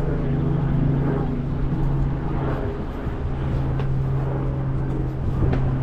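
Steady low engine drone with a held hum.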